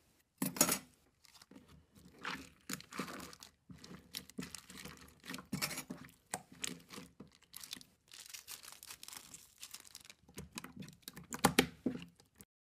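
Slime being squeezed and stretched by hand: irregular wet crackles, pops and tearing sounds, with louder bursts just under a second in and again near the end.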